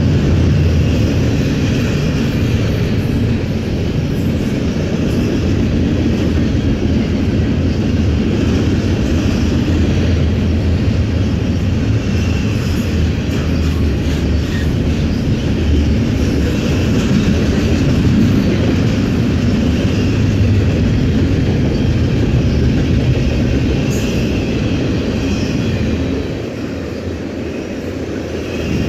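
Double-stack container train's loaded well cars rolling past close by: steel wheels running on the rails in a steady, loud rumble. The rumble dips briefly near the end, then picks back up.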